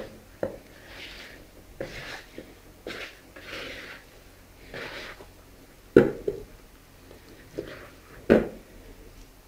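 Oiled hands kneading soft almond-croquet dough in a plastic bowl: soft rubbing and squishing, broken by a few sharp slaps and knocks of the dough and hands against the bowl, the loudest about six and eight seconds in.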